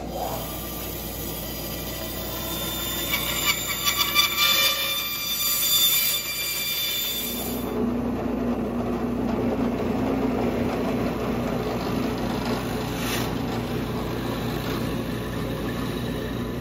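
Bandsaw running and cutting the curved edge of a plywood bow-form piece, louder and uneven while the blade is in the wood, for roughly the first half. Then, after an abrupt change, a drill press runs with a steady low hum, boring holes through the plywood for the mounting hardware.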